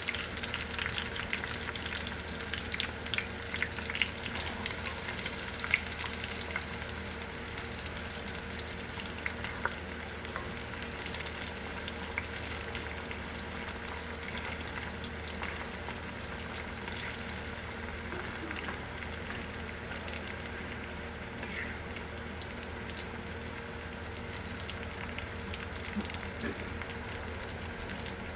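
Soaked, part-boiled dried green peas frying in hot oil: a steady sizzle with sharp crackles and pops, densest in the first few seconds and then settling to a more even hiss.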